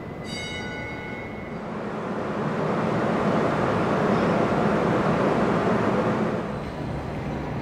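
Subway train running along the tracks: a rumble that swells, holds for a few seconds and then dies away. A brief high ringing tone sounds just at the start.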